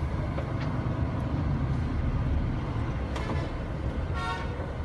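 Low, steady engine rumble of a Hyundai coach heard from inside its cabin as it moves slowly. A vehicle horn gives one short toot about four seconds in.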